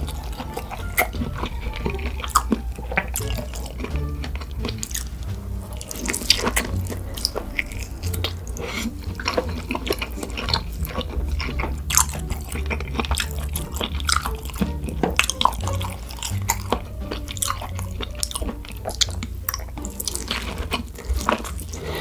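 Close-miked chewing of roasted pork belly: wet mouth clicks, smacks and biting snaps, set over quiet background music.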